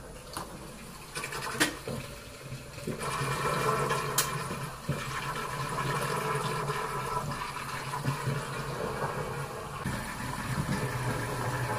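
Washing machine draining the water from its drum: a few sharp clicks, then from about three seconds in a steady hum with water rushing out.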